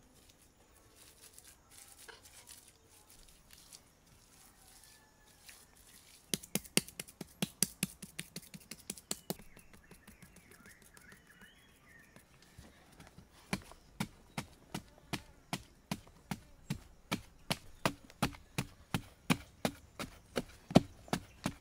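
A short-handled digging tool chopping into soil, striking steadily about twice a second through the second half. A quicker run of sharp knocks comes about a quarter of the way in.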